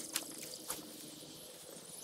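Faint outdoor ambience of insects trilling high and steadily, with two short sharp clicks about half a second apart in the first second.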